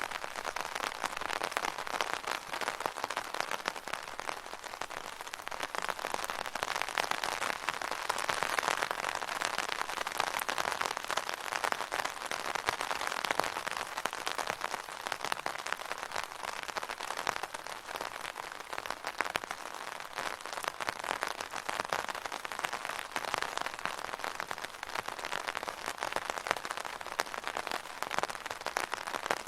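Rain pattering on an umbrella: a dense, steady patter of drops that swells and eases a little.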